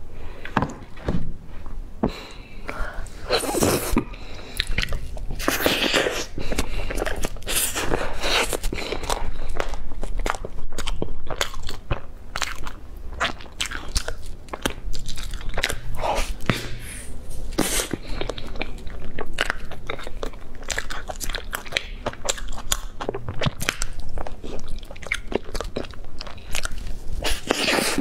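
Close-miked biting and chewing of a thick layered pastry cake with a creamy filling: crunchy bites and chewing clicks throughout, with several louder bites.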